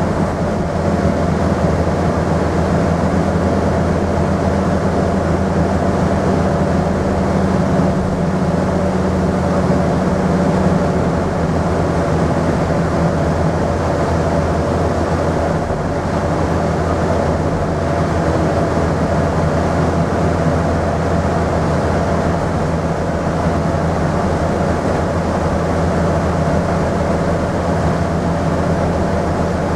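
Scania N230UD double-decker bus's five-cylinder diesel engine pulling hard at a steady pitch, heard inside the bus along with road noise.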